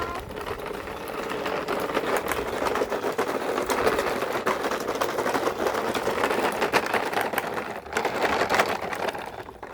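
Small motor and plastic gears of a toy vehicle whirring, with a dense, rapid rattle of clicks.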